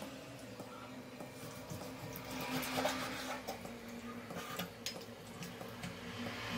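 Kitchen knife cutting raw meat on a wooden cutting board: scattered light taps and scrapes of the blade on the wood, over a faint steady hum.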